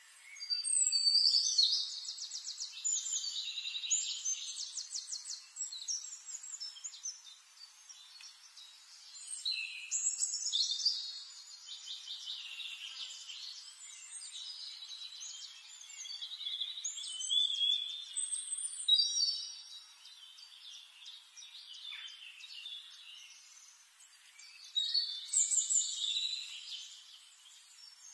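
A songbird singing phrases of rapid high trills and chirps, in bouts every several seconds with quieter twittering between.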